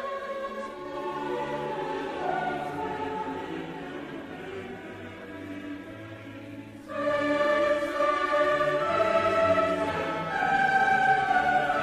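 Choral music with sustained sung notes, swelling suddenly louder about seven seconds in.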